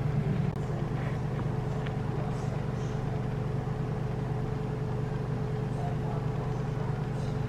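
A steady low machine hum with a faint constant higher tone over it, dropping slightly in level about half a second in.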